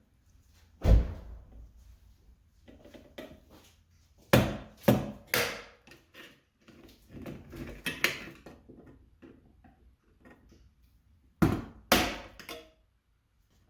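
Handling noises from hands-on electrical work: several sharp knocks and clunks of hard objects being handled or set down. There is one about a second in, three in quick succession midway, and two near the end, with lighter scraping and rattling between.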